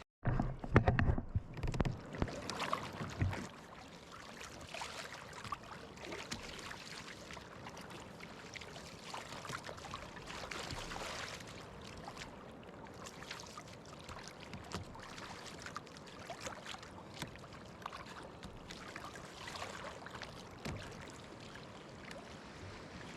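Kayak being paddled, with paddle strokes splashing and water washing along the hull in soft repeated surges. A few loud knocks come in the first three seconds.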